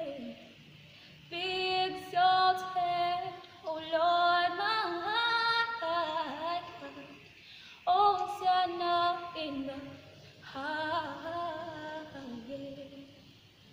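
A young woman singing solo and unaccompanied, in about four long held phrases with short breaks between them.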